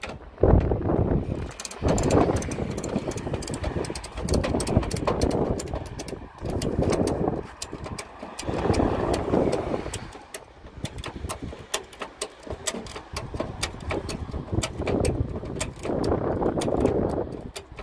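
Ratchet tie-down straps being cranked in repeated strokes under heavy load, the ratchet clicking sharply and many times, in bursts of a second or two, as they drag a non-running car up onto a trailer.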